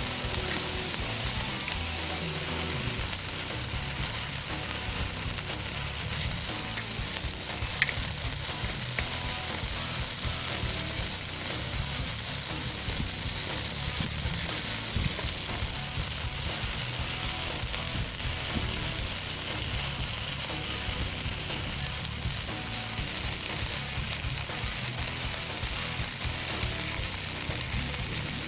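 Icy Hot fountain firework burning, its tube spraying sparks with a steady, sizzling hiss. A single sharp crack comes about eight seconds in.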